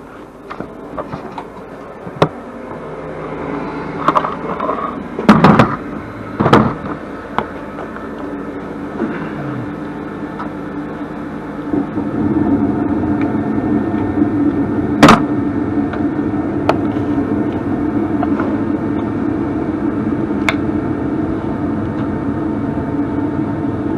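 Furnace starting up on a call for heat: a low motor hum builds, then about halfway a louder steady blower rush comes on. Several sharp knocks and clicks stand out, the loudest a few seconds in and again past the middle.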